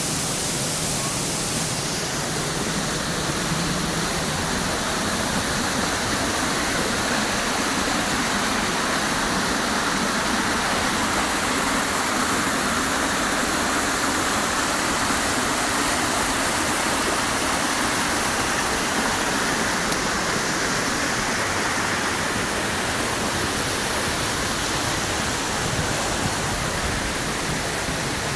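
Waterfall: water falling and rushing with a steady, even noise.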